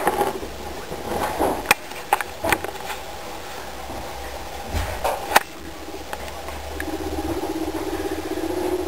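Small pet rodents (pouched marmots) in a nest box: a few sharp clicks and soft rustles in the first half. About three-quarters of the way in, a fast, even pulsing sound starts and carries on.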